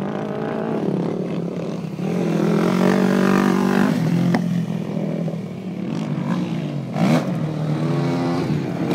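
Sport ATV engine revving up and down with the throttle as it rides across dirt, its pitch climbing and dropping several times.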